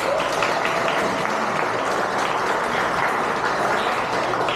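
A group of people applauding and clapping, steady throughout.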